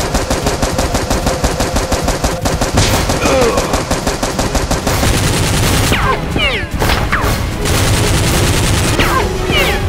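Movie-style automatic gunfire sound effects standing in for the toy blasters: rapid, continuous volleys of shots. A few short falling ringing tones come in the second half.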